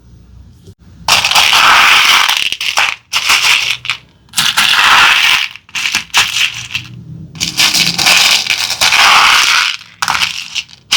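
Crunchy slime with candy mixed in being squished and stirred, crackling in about five bursts of one to two seconds each.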